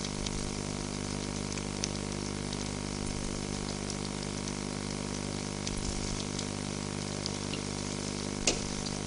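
Spice-brushed milkfish grilling in a wire basket over embers: a steady sizzling hiss with scattered small crackles, over a low steady hum. There is one sharper click near the end.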